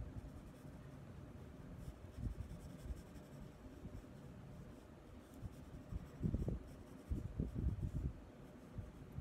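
Soft drawing pencil shading on paper: scratchy back-and-forth strokes, louder and in a quick run from about six seconds in.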